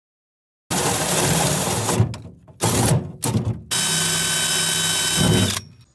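Cordless drill boring small pilot holes through a jon boat's sheet-metal bench seat for the screws of a deck-plate hatch. It runs in bursts: one of about a second, two short ones, then a longer steady run with a whine before it stops.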